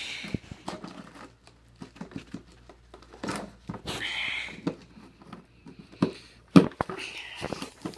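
A small key scraping and jabbing at packing tape on a cardboard shipping box, with several short bursts of tape ripping and the box rustling and knocking as it is handled; a couple of sharp knocks come near the end.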